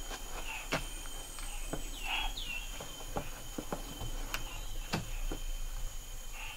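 Rainforest insects drone steadily in two high continuous tones, while scattered knocks and scuffs come from a person climbing over rocks into a cave mouth. Two short falling chirps come about two seconds in.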